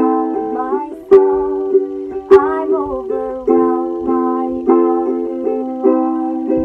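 A woman singing a slow worship song while strumming chords on a ukulele, each strum sharp at its start.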